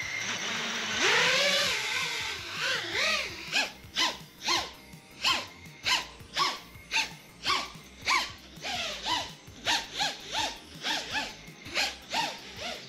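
FPV race quadcopter's brushless motors and propellers spooling up hard for takeoff about a second in. They then rev up and down in quick pulses about twice a second as the quad climbs and manoeuvres, a test flight listening for motor desyncs.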